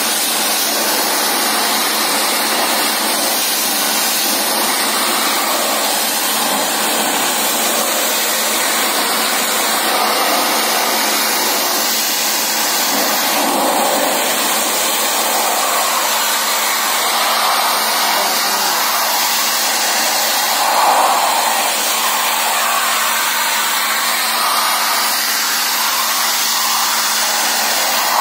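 Pressure-washer jet spraying water onto a tractor radiator's fins to clean out dirt: a loud, steady hiss of spray, with a steady low hum beneath it.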